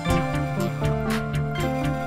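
Instrumental background music with held notes and a light, regular beat.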